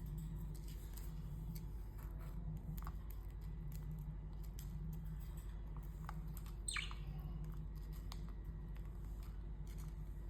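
A pet parakeet gives one short call that falls sharply in pitch, about two-thirds of the way through, among faint scattered ticks, over a steady low hum.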